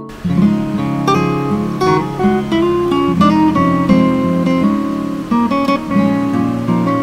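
Background music: acoustic guitar playing plucked and strummed notes. It starts again after a brief gap at the very beginning.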